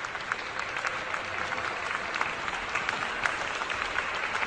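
Audience applause: dense, steady clapping from many hands.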